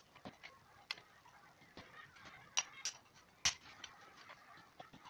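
Scattered clicks and knocks of the impact tool's hard plastic housing parts being handled and fitted together by hand, with a few sharper knocks past the middle.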